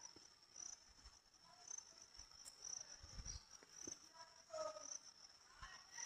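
Crickets trilling faintly: a steady high-pitched drone with brighter chirps about once a second. A soft dull thud comes about three seconds in.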